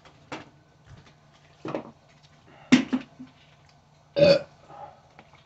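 A man burping: a few short belches, the loudest about three seconds in and just after four seconds in.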